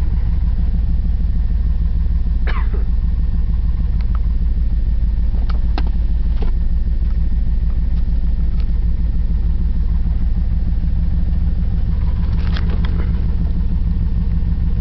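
1997 Chevy K1500's Vortec 350 (5.7 L) V8 running steadily at idle with a fast, even knocking pulse, which the owner suspects is a connecting rod knock.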